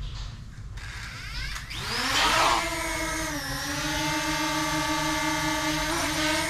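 DJI Mini 2 drone's four propeller motors spinning up for takeoff about two seconds in: a rising whine, loudest as it lifts off, that settles into a steady buzzing hover.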